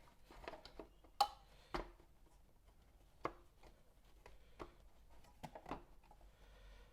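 Several scattered small clicks and knocks of turntable parts being handled and fitted during reassembly, the sharpest a little over a second in.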